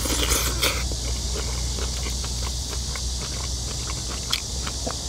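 Close-miked eating sounds: many quick wet clicks and smacks of chewing and of chopsticks handling braised kimchi. A steady low hum runs underneath.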